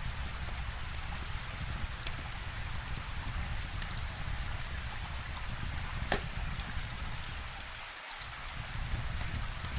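Steady rain hiss over a low rumble, with scattered crackles and pops from a wood fire; the sharpest pops come about two seconds in and about six seconds in.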